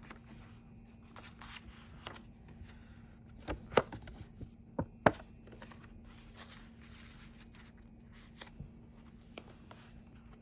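Paper and card being handled in a handmade junk journal: soft rustling and sliding as a vintage postcard is lifted out of a page and put back. A handful of sharp taps and snaps of card against paper come close together about halfway through.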